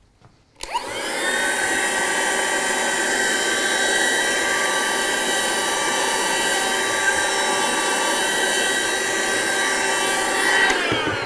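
A handheld cordless vacuum cleaner switches on about half a second in, its motor rising to a steady whine as it sucks up cork and wood drilling dust. It is switched off near the end, the pitch falling as the motor winds down.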